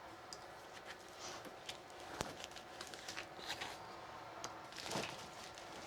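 Faint crinkling of plastic shrink wrap being cut with a knife and pulled off a machine, with scattered light clicks and one sharper tap a little after two seconds in.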